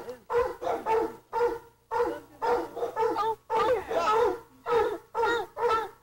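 Doberman barking over and over, about two barks a second.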